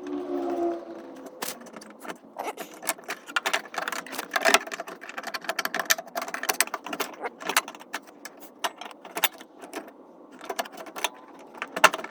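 Handling noise: a dense run of sharp clicks and light metallic rattling as the camera and small parts are moved about, with a brief squeak in the first second.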